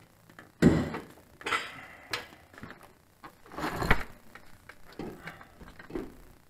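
Irregular metal clinks and knocks, with some rustling, as hands work a backhoe's main hydraulic pump and its fittings into place overhead. The two loudest knocks come about a second in and near four seconds in, with lighter ticks between them.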